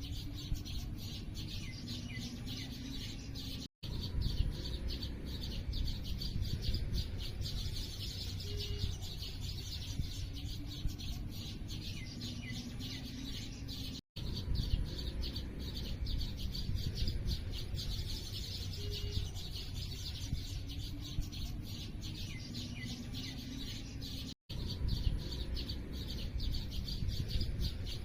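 A dense chorus of small birds chirping rapidly over a low steady background rumble. Every ten seconds or so the sound drops out for an instant and the same stretch of chirping starts again, a short recording looped.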